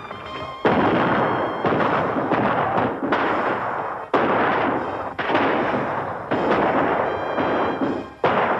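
Gunfire on a 1930s film soundtrack: about seven shots, roughly one a second, each a sudden crack followed by a long, rough, echoing tail.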